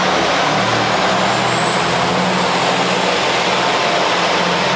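KiHa 120 diesel railcar's engine running under load as it pulls out and passes close by, with wheel and rail noise and a faint high whine slowly rising in pitch.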